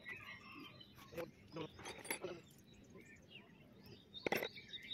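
A few light metal clinks and knocks as gear parts of an excavator track gearbox are handled, the sharpest knock about four seconds in. Birds chirp faintly in the background.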